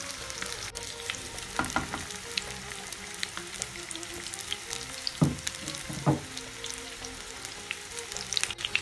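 Flour-and-egg-coated chicken drumsticks sizzling and crackling in hot oil in a frying pan, with a few louder knocks as more pieces are laid into the pan.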